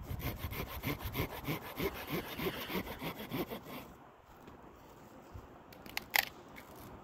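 Hand saw cutting pine firewood in quick, even back-and-forth strokes. The sawing stops about four seconds in, and a single sharp knock of wood follows about two seconds later.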